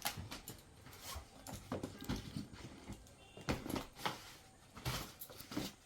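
Irregular rustling and crinkling of packaging and cloth as gifted clothes are handled, in a series of short uneven bursts.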